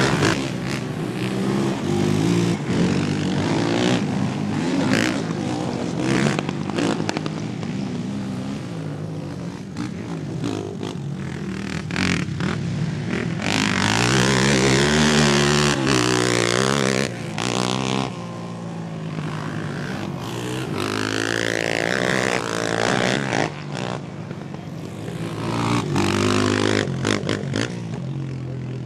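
Racing ATV (sport quad) engines revving hard and shifting as the quads pass, the pitch rising and falling over and over. The loudest pass comes about halfway through.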